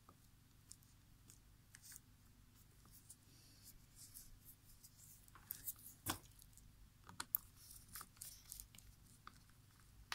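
Faint scraping, rubbing and small clicks of a Microsoft LifeCam Cinema webcam's plastic lens barrel being cleaned with a cotton swab and handled with tools, with a few sharper clicks past the middle.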